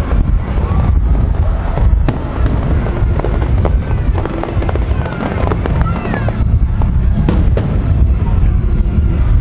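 Aerial fireworks display: a dense run of sharp bangs and crackles over a constant heavy low rumble, with music and crowd voices underneath.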